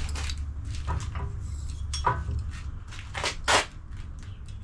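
Hand tools clinking and knocking against metal as suspension fixings are undone, with a sharper clank about two seconds in and a louder, longer clatter about three and a half seconds in, over a steady low hum.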